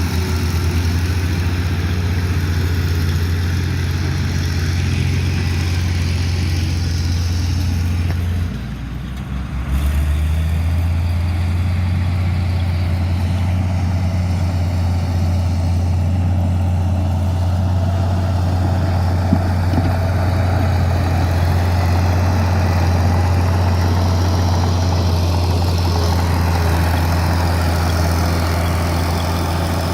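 Heavy dump truck diesel engine running steadily at a low, even hum close by, with a short drop in level about eight and a half seconds in before it resumes.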